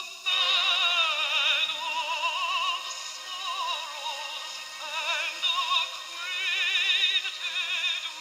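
Background music: a high, opera-like melody with strong vibrato, in phrases that break off and start again every second or two.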